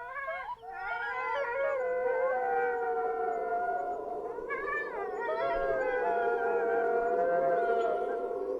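A chorus of howling canines, several voices holding long, slowly wavering notes at different pitches over one another. The chorus breaks briefly about half a second in, and fresh howls start up about halfway through.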